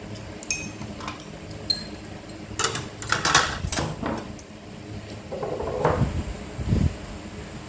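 Sounds of people eating: chopsticks and porcelain bowls clicking and knocking, with sipping from a bowl and chewing between the clicks.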